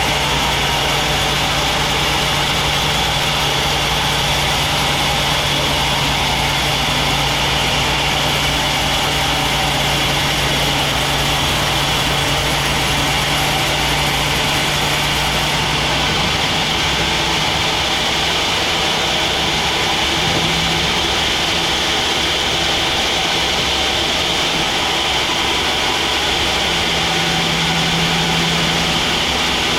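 Sawmill machinery running steadily: a constant motor hum under a high, noisy whine. About halfway through, the low hum shifts and the top end thins out.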